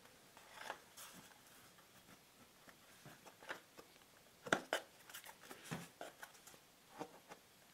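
Fingers handling and gripping a black cardboard gift box, working at its tight-fitting lid: faint scattered scrapes and taps of skin on card, the loudest pair about four and a half seconds in.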